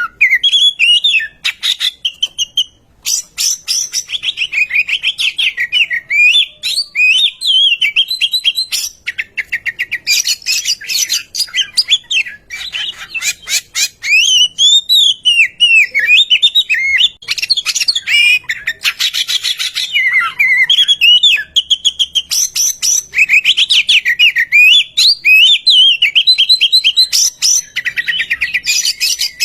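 Oriental magpie-robin singing a long, varied song of clear whistled phrases that rise and fall, mixed with fast rattling chatter, with only brief pauses.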